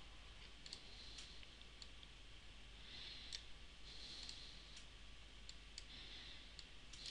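Near silence with faint computer mouse clicks, scattered irregularly over a low background hiss.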